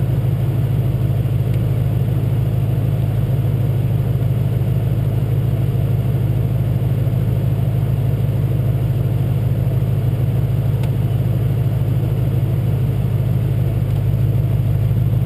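Truck engine idling steadily, a constant low drone with no revving.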